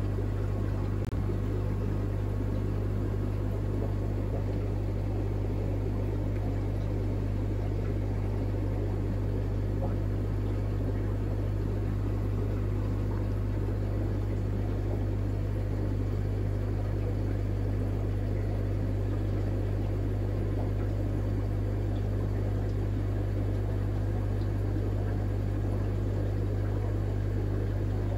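Aquarium air pump humming steadily, with air bubbling up through a sponge filter.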